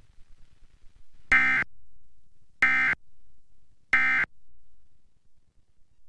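Emergency Alert System end-of-message signal: three short bursts of SAME digital data tones, each about a third of a second long and about a second apart, marking the end of the alert message.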